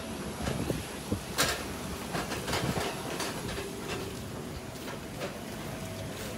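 Steady mechanical rumble of an airport apron, with a faint steady whine and irregular knocks and clicks, the sharpest about a second and a half in.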